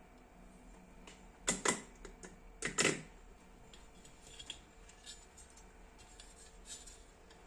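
Handling noises on a workbench: two clusters of sharp knocks and clicks about one and a half and three seconds in, then lighter scattered clicks as a heavy aluminium amplifier heatsink is moved.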